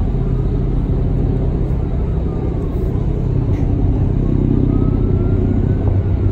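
Staten Island Ferry's engines running under way: a steady low rumble with rushing noise, and a faint whine that slowly rises and falls in pitch.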